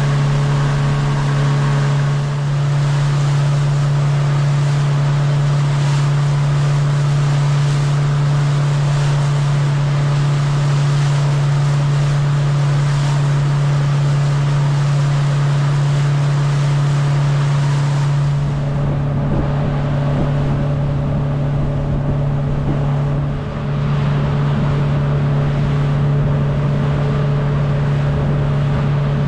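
Sailboat's outboard motor running at a steady cruising speed, with a constant low drone and the rush of water from the wake. About 18 seconds in the sound shifts, with less hiss and more low rumble.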